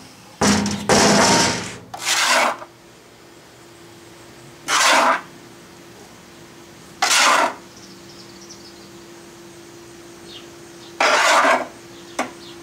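Prepared foundry molding sand being dumped into a molding flask over the pattern: a rushing pour of about two seconds at the start, then three shorter dumps a few seconds apart. A faint steady hum runs underneath.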